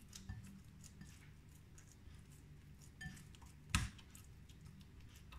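Hands pressing and turning yeast dough in an oiled glass bowl: faint soft handling with a few light taps, and one sharp clink against the glass bowl a little under four seconds in.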